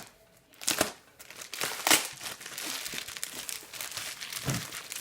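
Parcel packaging crinkling and rustling as it is pulled open and unwrapped by hand, with a few sharp crackles, the loudest about two seconds in. A dull knock comes near the end.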